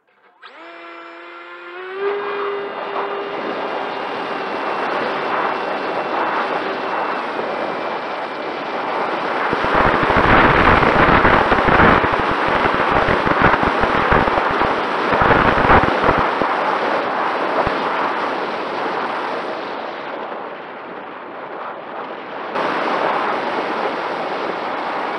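Electric motor and propeller of a Mini Talon RC plane heard through its onboard camera. The motor whine rises in pitch as it spins up about half a second in, then settles into a steady hum under rushing wind noise. Gusts buffet the microphone in the middle, and the sound eases off briefly near the end before picking up again.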